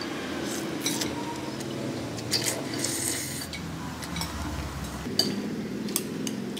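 Chopsticks and a spoon clinking against a ceramic bowl as noodles are stirred and lifted, a few light irregular clicks.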